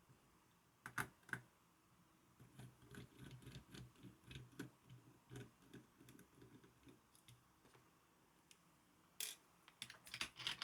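Faint clicks and light taps of a screwdriver working a small, awkward fan screw on a graphics card's heatsink. There are sharper clicks about a second in and a cluster of them near the end.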